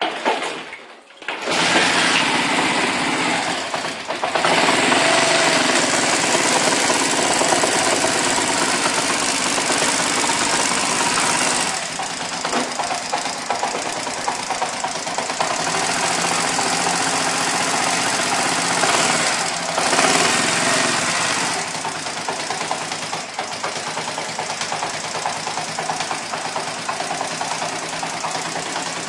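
Honda Eco 100 motorcycle's single-cylinder four-stroke engine starting about a second in, then running steadily at idle.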